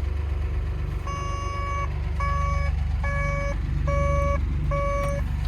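Two-tone electronic warning alarm on a machine, alternating a higher and a lower beep about once a second, starting about a second in. Under it runs a steady low engine hum.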